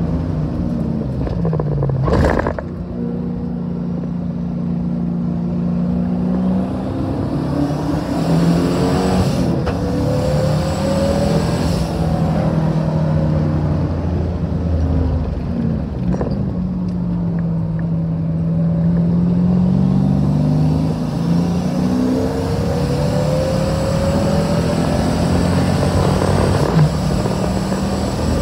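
Twin-turbo LSX V8 car running at racing speed, its engine pitch climbing and falling again several times as it accelerates and slows. A sharp knock comes about two seconds in.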